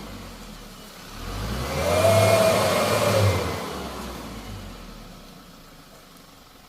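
Loaded dump truck's engine revving up and back down once, with a whine that rises and falls, about a second in. It then settles back to a low run near the end.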